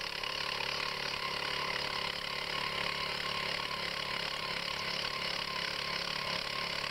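Two-man earth auger's small gas engine running steadily under load as the auger bit bores into frozen ground.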